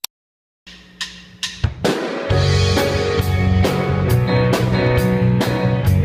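A sharp click, then a short silence before background music starts: scattered drum hits build into a full band with drum kit and bass playing a steady beat from about two seconds in.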